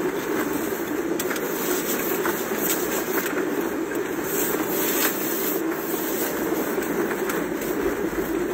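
Steady low cabin noise of a car: road and engine noise heard from inside the vehicle, constant throughout with no change.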